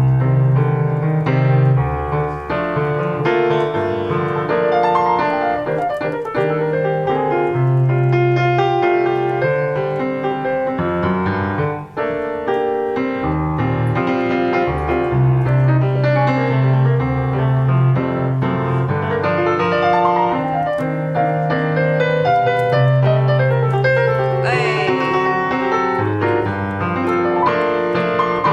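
Live Latin instrumental music: piano playing busy chords and runs over held low bass notes.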